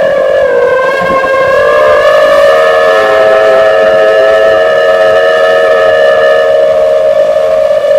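Whine of a 5-inch FPV quadcopter's iFlight XING2 2207 brushless motors spinning Dalprop Cyclone T5046C propellers in flight, heard from the camera mounted on the drone. It is a loud, steady buzzing whine that dips slightly in pitch about a second in, then holds nearly even.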